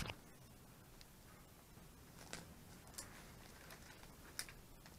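Near silence with a few faint, brief rustles and clicks from a person handling a bag and its strap.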